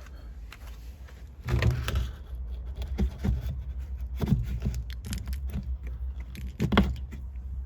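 An external wall vent being pushed and worked into a hole in the motorhome's side: a run of knocks, scrapes and rustles, a cluster about a second and a half in and the loudest knock near the end, over a steady low rumble.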